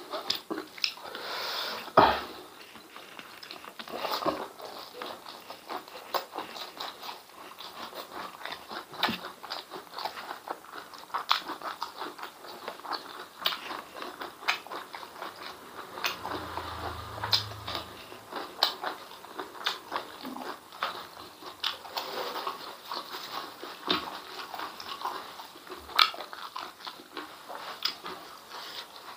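Close-miked chewing and lip smacking of a man eating spicy beef and chicken intestines with rice by hand. It is a steady run of short smacking clicks throughout.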